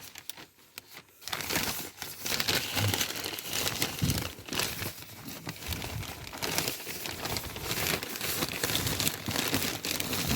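Crinkling and rustling handling noise close to the microphone, thick with small crackles and clicks. It starts just over a second in and continues unevenly.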